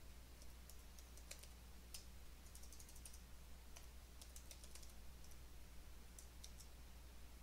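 Faint typing on a computer keyboard: sharp keystroke clicks in short, irregular runs, over a steady low hum.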